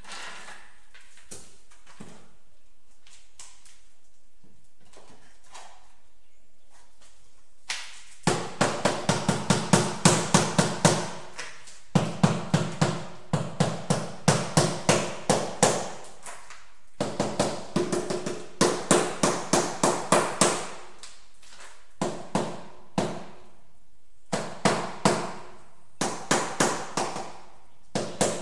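Rubber mallet tapping a large ceramic wall tile to bed it into the mortar: quick runs of sharp taps, about five a second, starting about eight seconds in and coming in bursts of a few seconds with short pauses.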